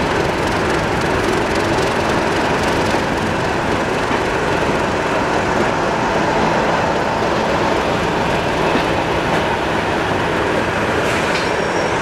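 Passenger train running slowly along a station platform: steady rolling noise of wheels on rail, heard from a coach window. A thin, high wheel squeal begins near the end as the train slows.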